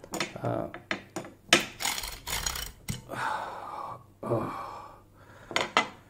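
Metal clicks, knocks and scraping as the ridged steel bar of a steering-wheel car lock is drawn out of its opened lock body and handled.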